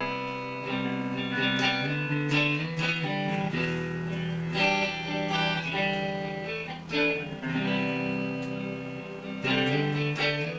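Electric guitar playing held notes and chords that ring on and change every second or so.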